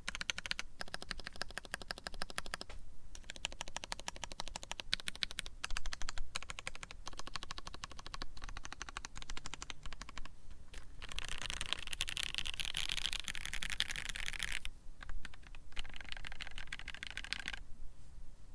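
Fast typing on a polycarbonate-cased Maja Alice-layout mechanical keyboard with lubed Pewter switches, a brass plate and GMK keycaps: a dense stream of keystroke clacks broken by a few brief pauses, densest and brightest about two-thirds of the way through.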